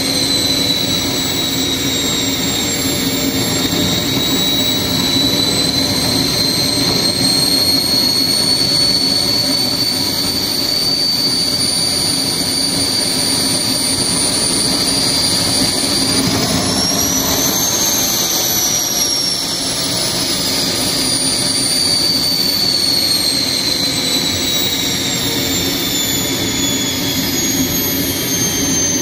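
Homemade turbojet engine built from a truck turbocharger running steadily: a loud rushing noise with a high turbine whine. The whine rises in pitch about 16 seconds in, then slowly falls back.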